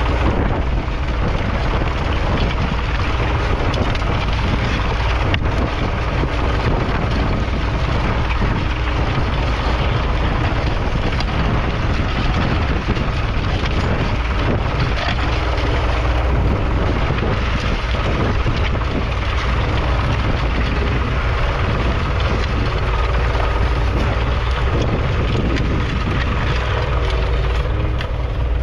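1943 Fordson Model N tractor's 4.0-litre four-cylinder diesel engine running steadily under load while pulling a two-furrow trailed plough.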